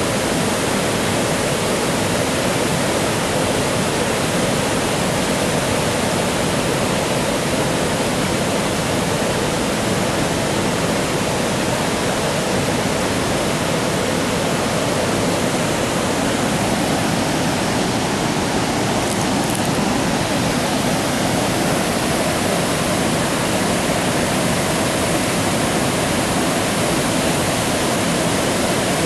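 Creek water pouring over a small concrete dam, a steady rush with no letup.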